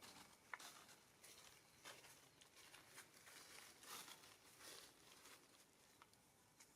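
Near silence with faint rustling and a few scattered light clicks and taps.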